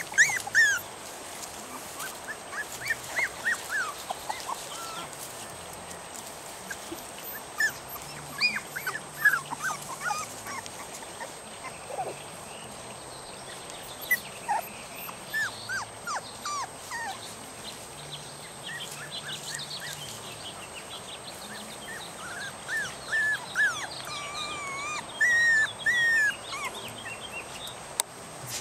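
Young Norrbottenspets puppies whining and whimpering: many short, high cries, most falling in pitch, scattered throughout, with a longer held whine near the end. The whining is the pups' distress at being woken and moved away from their nest while wanting to nurse.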